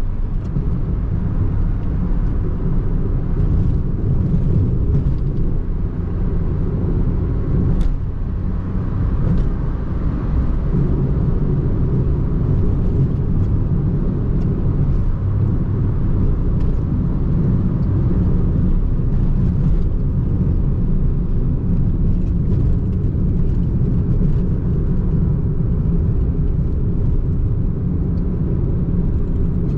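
Renault Twingo I's 1.2-litre four-cylinder petrol engine and tyres on the move, heard from inside the cabin: a steady low rumble of engine and road noise, with no revving up or down.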